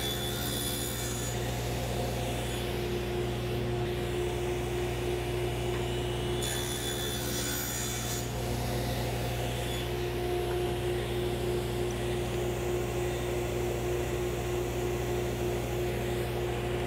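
Table saw running steadily with a constant motor hum while shallow saw kerfs are cut across a wooden board. A brighter, higher sound comes in briefly near the start and again about halfway through.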